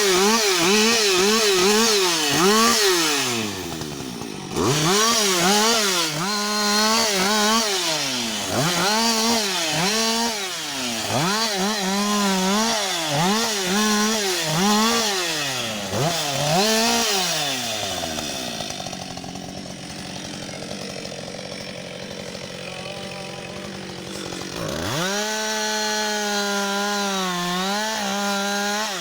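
Husqvarna 560 XP two-stroke chainsaw cutting wood, its engine note repeatedly dipping and recovering as it works. About two-thirds of the way through it drops to idle, then revs back up to a steady high speed near the end.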